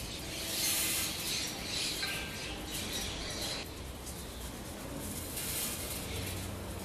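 Dry loose offerings rustling and pattering as they are dropped by hand into a brass pot, in several short spells.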